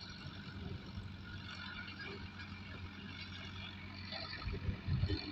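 Tractor engine running with a steady hum, with a few low thumps near the end.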